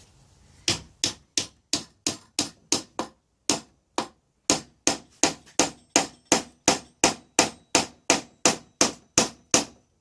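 A hammer striking a hand-shaped wooden peg, driving it through an offset drilled hole in a mortise and tenon joint: rapid sharp blows, about three a second, with two brief pauses. As the drawbore peg goes in it pulls the joint and closes up the seam.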